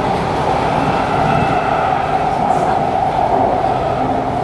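Steady cabin noise inside a Kawasaki C751B metro car at a station platform: an even, unbroken hum and rush with no clear wheel beats.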